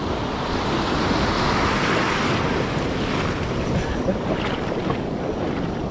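Ocean surf breaking and washing up the beach, a steady rush that swells about two seconds in, with wind buffeting the microphone.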